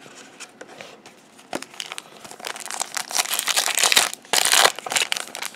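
Foil wrapper of a trading-card booster pack crinkling as it is handled, starting about two seconds in and loudest near the end.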